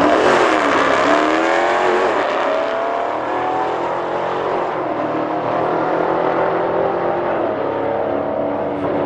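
A Dodge Challenger and a Mercedes G-wagon launch side by side off a drag strip start line. Their engines rev up in rising sweeps, broken by several upshifts, then settle into steadier full-throttle running.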